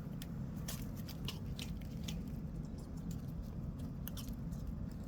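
Chickens pecking at ground corn and chicken feed: scattered, irregular clicks and taps over a steady low rumble.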